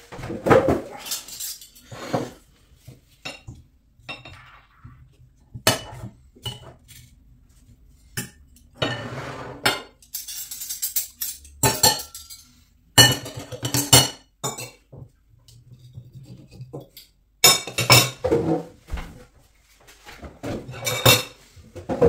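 Knife and fork clinking and scraping against a ceramic plate while cutting cooked buffalo tongue, in irregular clusters of sharp strokes with short pauses between them.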